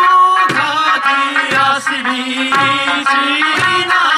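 Okinawan Eisa folk music: sanshin and a sung melody with taiko drum strokes about once a second.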